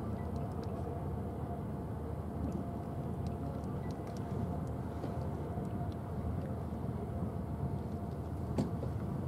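Steady low rumble of the cruise ship Mein Schiff 4 under way, its machinery and ventilation giving a faint constant hum, with a few small clicks scattered through it.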